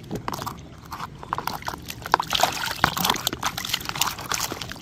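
Liquid sloshing and splashing in a plastic basin as a hand swishes a toy action figure through it, in many quick, uneven splashes and drips.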